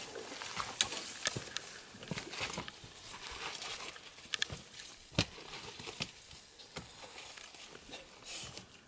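Hikers' footsteps on a steep, muddy trail, with leaves and branches brushing past and a few sharp clicks and knocks scattered through it.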